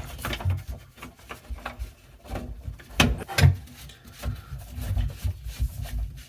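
Handling noise of sink drain parts being fitted and tightened together: irregular knocks, clicks and rubbing, with two sharper knocks about three seconds in.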